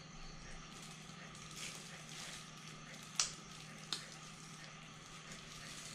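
A person drinking soda from a plastic bottle, mostly quiet over a faint steady hum, with two short sharp clicks about three and four seconds in.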